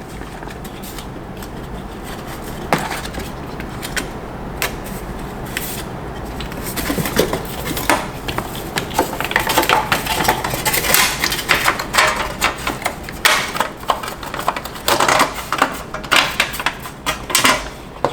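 Metal clinking and rattling as an aluminium mounting plate and its wires and hardware are handled and fitted, with quick clicks and knocks that come thicker and louder in the second half.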